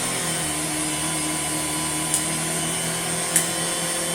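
Hoover Junior 119 upright vacuum cleaner running steadily on test with its belt fitted, motor and brushroll giving a constant hum. Two short sharp ticks sound about two and three and a half seconds in.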